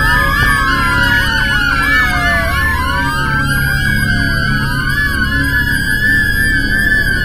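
Several emergency-vehicle sirens sounding at once, some in slow falling wails and some in quick up-and-down yelps, over a steady low rumble.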